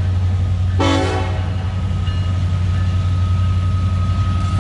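Diesel freight locomotives approaching with a steady low engine rumble, giving a short horn blast about a second in as they sound for the grade crossing; the next long blast begins at the very end.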